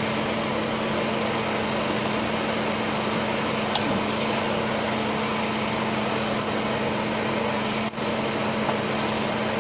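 Steady whirring hum of a fan-like machine with a low drone under it, with a faint tick about four seconds in and a brief dropout near the end.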